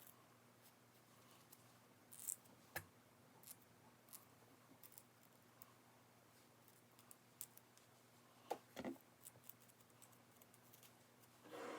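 Near silence broken by a scattering of faint, sharp clicks and small handling noises, with a pair of slightly louder clicks about three-quarters of the way through.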